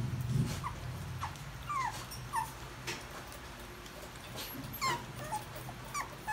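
Young toy poodle puppies whimpering: a string of short, high squeaks that fall in pitch, about ten over several seconds, with faint clicks in between.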